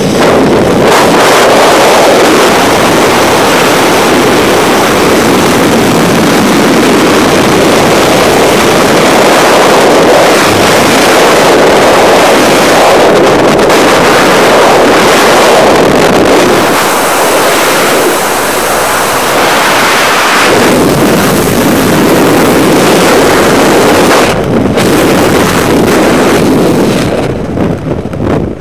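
Loud, steady rush of freefall wind buffeting a helmet-mounted camera's microphone, dropping away near the end as the parachute opens and the fall slows.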